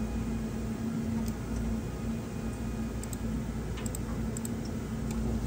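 Steady low electrical hum of the room with a few faint, sharp ticks scattered through it.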